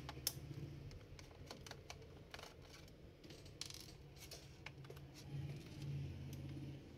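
Faint scattered clicks and taps of a small screwdriver undoing the screws of a Dell Latitude E6540 laptop's bottom cover.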